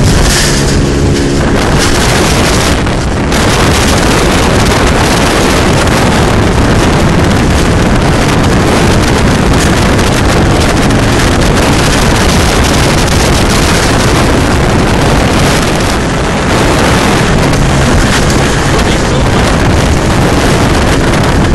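70 hp outboard motor driving a small boat at speed, largely buried under loud, steady wind noise on the microphone.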